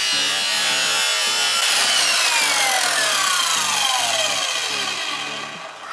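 Parkside PKS 1500 A2 mitre saw cutting wood. From about two seconds in, the blade winds down with a falling whine, and the sound fades out near the end.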